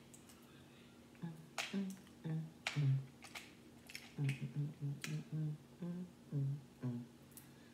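A person eating leftover seafood-boil shrimp while peeling it by hand: a scatter of sharp clicks and smacks, and from about a second in a string of short, low hummed sounds.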